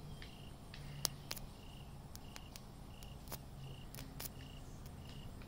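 A cricket chirping steadily, about three chirps every two seconds, with a few sharp clicks as a carbon rod wired to solar panels is touched against another to strike an arc; the loudest click comes about a second in.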